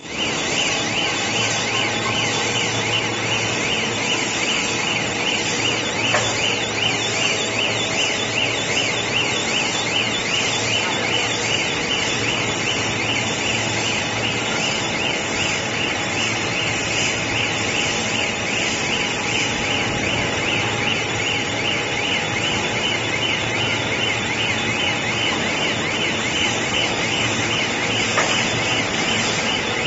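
Cast polyethylene film line's winder running steadily, with a rapidly warbling electronic alarm sounding without a break over the machine noise.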